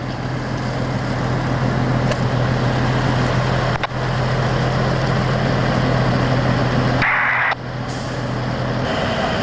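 Fire truck's diesel engine running steadily, a constant low hum under a broad rushing noise; the hum stops near the end.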